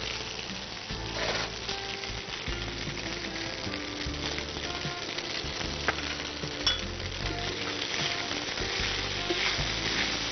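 Rice with fried onions sizzling in hot oil in a pan as it is stirred gently with a fork, with a light click or two from the fork against the pan about six seconds in.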